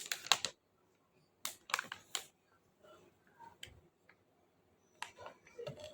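A few light clicks and taps at irregular intervals, some in quick clusters, from objects being handled in a small room.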